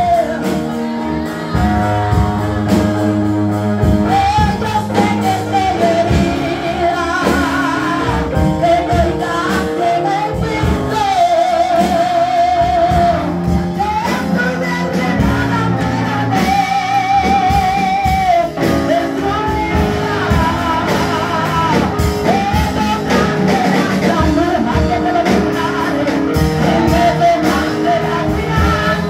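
A woman singing a Spanish-language worship song into a handheld microphone over instrumental accompaniment, with long held notes sung with vibrato.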